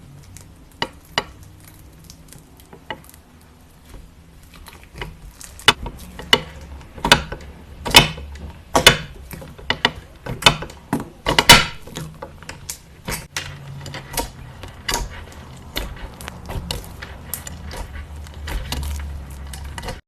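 Slime being pressed and worked by hand, giving a string of sharp clicks and pops. They are sparse at first, grow thickest and loudest in the middle, then thin out.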